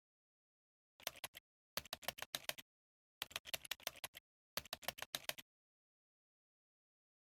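Rapid sharp clicks in four short bursts, like keys being typed, with silent gaps between them.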